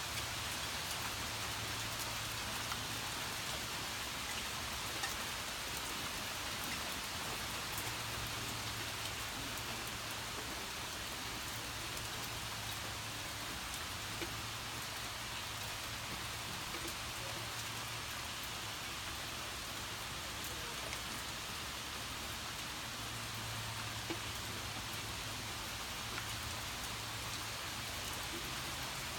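Heavy rain pouring down steadily in a thunderstorm downpour.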